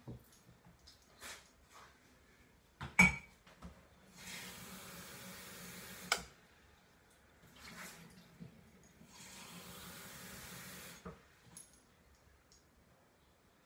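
Water running in two bursts of about two seconds each, with a sharp knock of crockery on the counter just before the first and a clink right after it.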